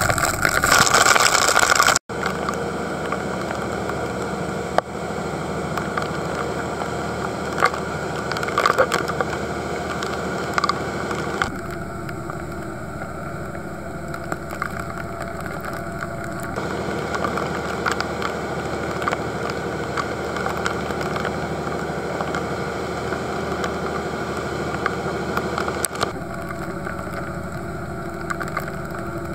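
A boat's engine runs steadily under a constant hiss of wind and rain. For the first two seconds, a loud rush of wind and breaking spray comes from the waves along the hull.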